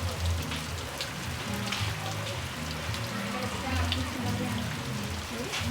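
Heavy rain falling, a steady hiss with scattered sharp ticks of drops striking close by. Music with low bass notes plays faintly underneath.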